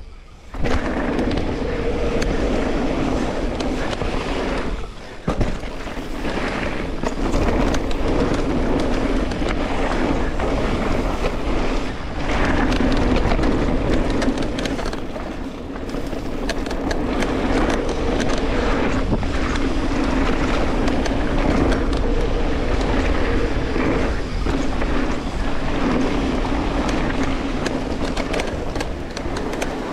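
Wind rushing over the camera microphone while a Specialized Turbo Levo e-mountain bike rides fast down a dirt jump line, with tyres rolling on the trail and frequent knocks and rattles from the bike. The sound drops away briefly about five seconds in.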